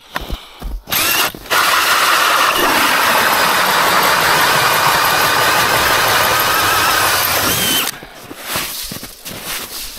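DeWalt cordless drill spinning an ice auger, boring a hole through lake ice. A short burst about a second in, then steady drilling with a motor whine for about six seconds, cutting off near the end.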